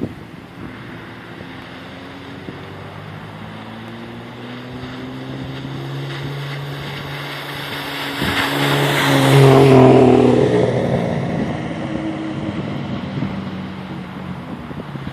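Turbocharged Hyundai Tiburon V6 driving past: the engine and exhaust note builds, is loudest a little past the middle, and fades away.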